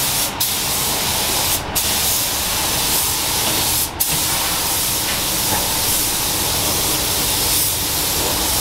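Pneumatic paint spray gun hissing steadily as clear coat is sprayed onto a car body. The hiss breaks off briefly three times, near the start, at about one and a half seconds and at about four seconds, where the trigger is let off.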